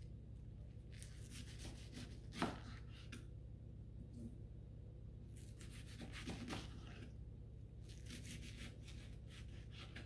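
Kitchen knife slicing cabbage on a cutting board: three runs of quick cuts, with a sharper knock of the blade on the board about two and a half seconds in. A low steady hum lies underneath.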